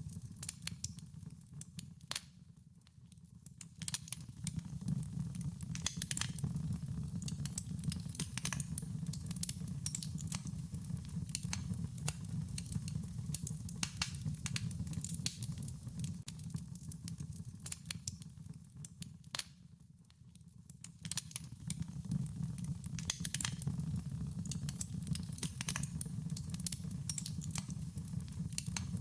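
Wood fire crackling, with irregular sharp pops over a steady low rumble of the flames; the sound thins out briefly twice.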